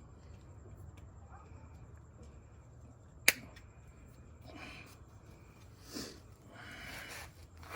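Hoof trimming shears giving one sharp snip as they cut through a goat's hoof wall about three seconds in, followed by softer rustling.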